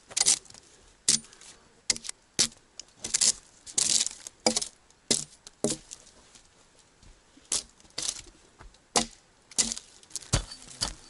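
Axe blows on a log, stripping and shaving off bark: a string of sharp chops and short tearing scrapes, about one or two a second, with a pause of about two seconds midway.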